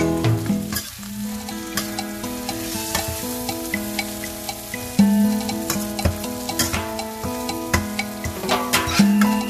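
A metal spoon stirring shrimp in a stainless steel wok, with a light sizzle and irregular clinks and scrapes of the spoon against the pan. Background music plays underneath.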